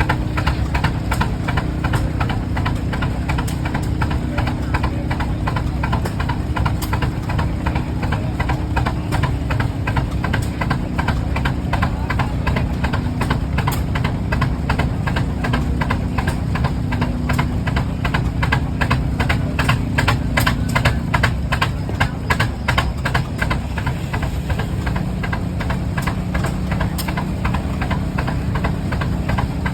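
Rumely OilPull tractors' slow-turning, two-cylinder engines running steadily under sawmill duty, with a rapid, even exhaust beat. The low hum underneath changes about two-thirds of the way in.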